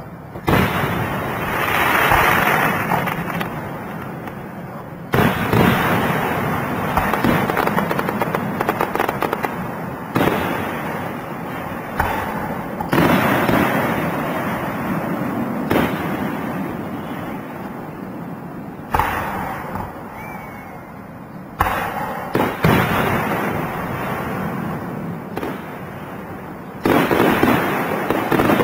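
Aerial fireworks shells bursting one after another at irregular intervals of one to five seconds, each sudden bang trailing off in a long noisy crackle.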